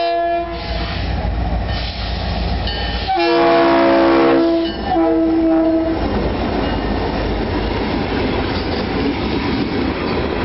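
Florida East Coast Railway diesel freight locomotives passing at close range through a grade crossing, sounding their several-note air horn. There is a short blast at the start, then a longer one from about three seconds in, briefly broken, ending around six seconds. After the horn, the rumble and clatter of freight cars rolling by on the rails takes over.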